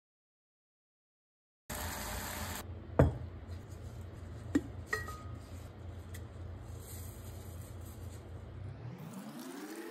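Silence for the first second and a half, then a gloved hand handling a glass teapot: a few sharp clinks and taps of glass, the loudest about three seconds in, two of them ringing briefly, over a low steady hum. Near the end a tone rises in pitch as water starts pouring into the glass teapot.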